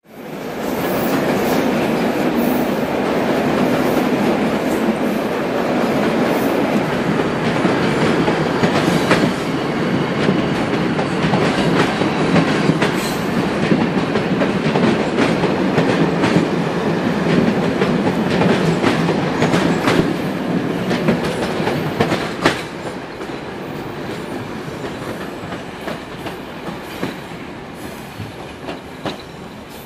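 Railway wagons rolling past close by, a dense rumble with frequent clicks and clatter of wheels over rail joints and points. It eases off after about 22 seconds and carries on more quietly.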